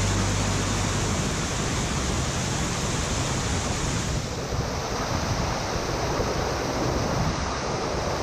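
Steady rush of a shallow stream's water, with wind buffeting the microphone as an uneven low rumble.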